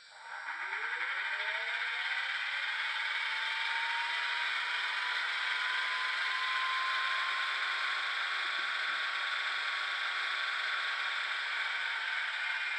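Märklin Z scale ETA 150 battery railcar's sound decoder playing, through its tiny speaker, an electric whine. The whine starts just after the announcement ends, climbs in pitch over the first few seconds and then holds steady, over a continuous rattling hum.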